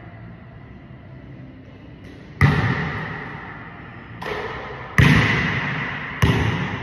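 Basketball hitting the hoop and bouncing on a hardwood gym floor: four hard thuds in the second half, each ringing out with a long echo in the hall.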